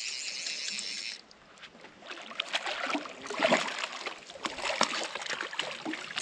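A large hooked trout thrashing at the surface beside the boat and being scooped into a landing net: irregular water splashes, loudest about three and a half seconds in. A steady hiss in the first second.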